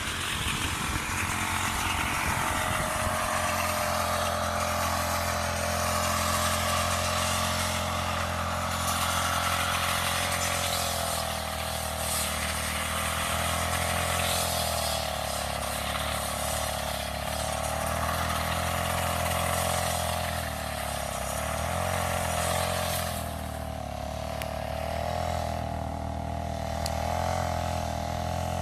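Honda GX35 four-stroke brush cutter engine running at high speed, its pitch wavering slightly up and down as the throttle and load vary, then stopping at the very end.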